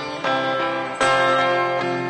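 Worship music on acoustic guitar: chords strummed about a quarter-second and a second in, ringing on between strums.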